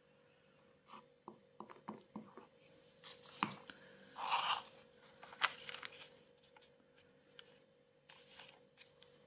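Light paper-and-tool handling on a cutting mat: scattered small taps and clicks, a sharp click at about three and a half seconds, a brief paper rustle just after, and another sharp click about a second later, as a glued tea bag panel is pressed onto a sheet of tea-dyed backing paper. A faint steady hum runs underneath.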